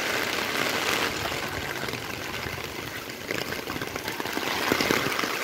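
Heavy rain falling on wet pavement, a steady hiss of water, with a few sharper taps in the second half.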